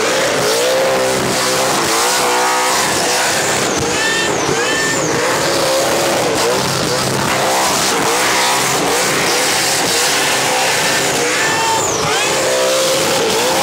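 Supercharged big-block V8 of a Holden VE Commodore held at high revs through a burnout, the revs wavering up and down over and over, with the rear tyres spinning against the pavement.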